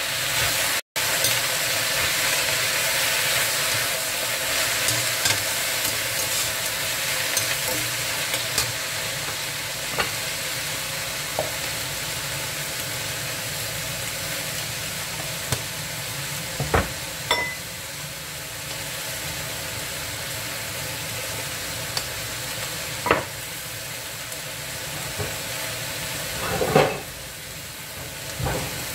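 Chopped leafy greens sizzling as they stir-fry in a stainless-steel wok, with a steady hiss and the metal spatula clinking against the pan now and then.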